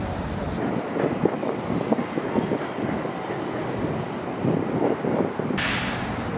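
Outdoor city ambience: a steady rumble of passing traffic with wind on the microphone, changing abruptly about half a second in and again near the end, where a brighter hiss comes in.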